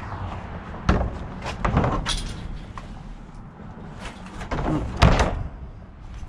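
Knocks and clatter of discarded laminate flooring scraps being moved around in a container, with sharp bangs about one second, two seconds and five seconds in, the last the loudest.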